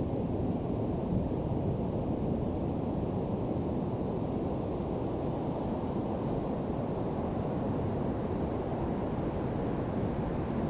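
Ocean surf on a beach: a steady, even rush of water noise, deep-toned, with no single wave standing out.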